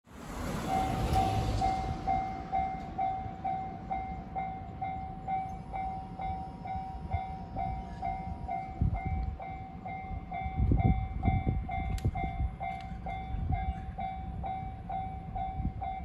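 Japanese railway level-crossing warning bell ringing steadily, about two and a half rings a second, signalling an approaching train, over a low uneven rumble.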